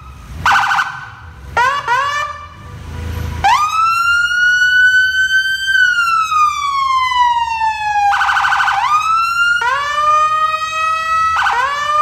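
Police car siren: short rising whoops, a long wail that climbs and then slowly falls, and a harsh buzzing blast near the start and again about eight seconds in.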